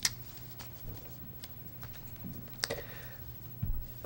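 Quiet room with a steady low hum and a few scattered small clicks, the sharpest right at the start and about two and a half seconds in.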